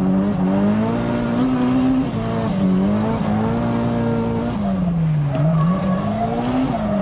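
Nissan Silvia drift car's engine pulling hard at high revs, heard from inside the cabin. Its pitch rises and falls as the throttle is worked through the corners, dropping away for about a second near the middle before climbing again. Tyres squeal in the slides.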